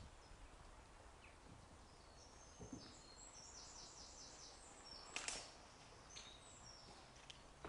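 Faint song of a small bird: a quick run of short, high repeated notes about two seconds in, lasting a few seconds. About five seconds in comes one sharp click or knock, louder than the song.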